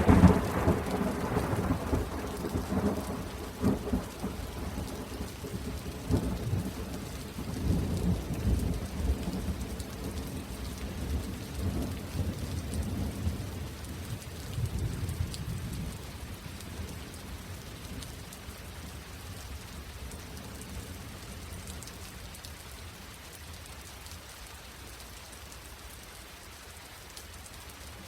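Thunderstorm with steady rain. A long roll of thunder rumbles and swells several times and dies away over the first half, leaving only the rain falling.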